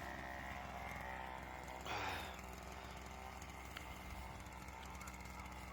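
Faint steady drone of a chainsaw engine idling, with a brief soft noise about two seconds in.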